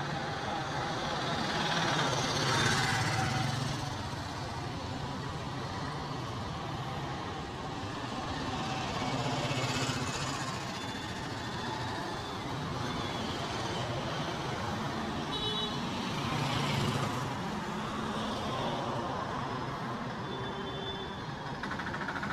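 Street traffic: vehicles pass in three swells against a steady road noise, with a few short, high horn toots.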